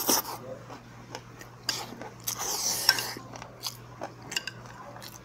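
Eating from a bowl: a slurp right at the start and another longer slurp about two seconds in, with chewing and light clicks of chopsticks against the dishes.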